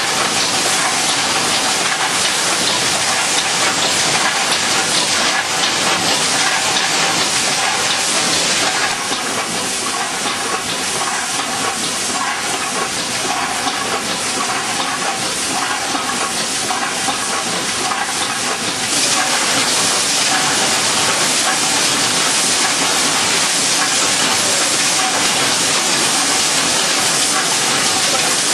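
Total closure shrink-wrap packaging machine running, a steady, even rush of machine noise strongest in the upper range. The upper part drops a little about nine seconds in and comes back about ten seconds later.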